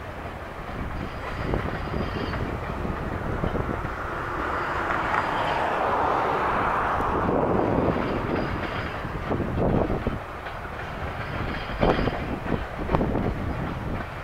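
Freight train of covered grain hopper cars rolling past, a steady rumble of steel wheels on rail, with a few sharper clicks of wheels over rail joints near the end.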